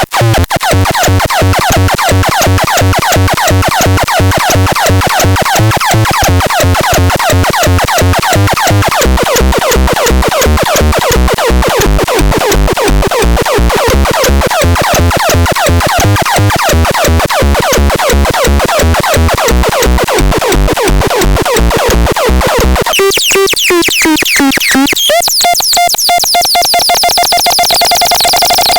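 Electronic synthesizer music with a fast, even pulse and a bass line that steps between notes. About 23 seconds in, it changes to gliding, sweeping tones.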